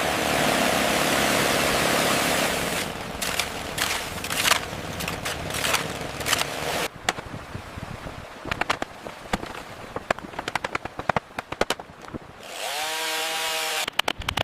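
Chainsaw running steadily for about seven seconds, then a run of sharp cracks and clicks. Near the end comes a short buzzing tone.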